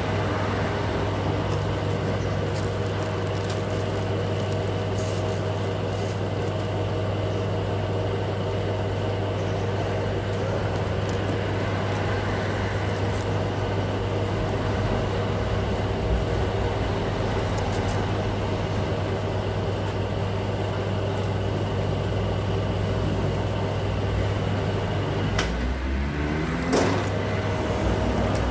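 Frigomatic soft-serve ice cream machine running with a steady electric hum. Near the end, a couple of clicks and a shifting whir as soft serve is drawn from its tap into a cone.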